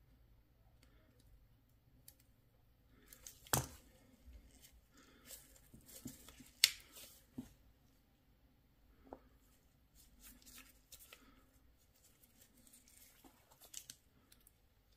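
Small plastic clicks and short scrapes of a Mercedes-Benz key fob housing being worked by hand, with two sharp snaps about three and a half and six and a half seconds in.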